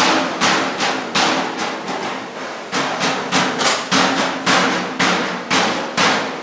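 Hand hammer striking sheet-metal car body panels, panel-beating work, about two blows a second in an uneven rhythm, each blow ringing briefly.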